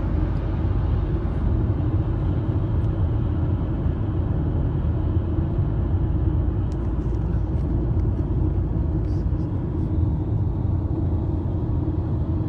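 Steady low rumble with no separate knocks or events.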